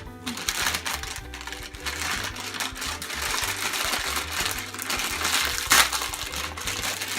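Background music with a steady, repeating bass beat, over the crinkling and rustling of a plastic squishy-toy package being opened by hand, with one louder crackle a little before six seconds in.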